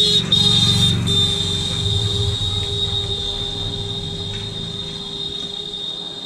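A loud, steady, high-pitched whistling squeal, broken off once in the first second, then fading slowly, over a low rumble.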